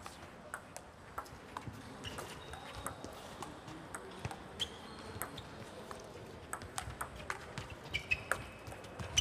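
Table tennis ball clicking back and forth off the rackets and table in a doubles rally, a quick irregular run of sharp ticks, the loudest near the end.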